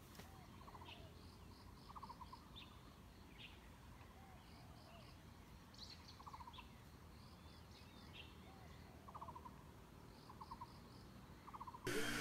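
Faint birdsong: a short low trill repeated about once a second, with brief higher chirps in between. Near the end a sudden louder noise breaks in.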